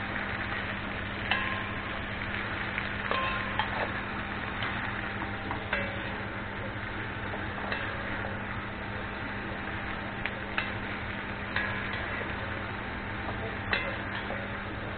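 Beef and onions sizzling in a kazan, stirred with a metal spatula that clinks and knocks against the pot every second or two.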